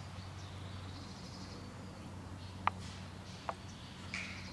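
Quiet woodland ambience with faint birdsong over a steady low hum. Two sharp clicks stand out, the louder one about two-thirds in and a softer one a second later.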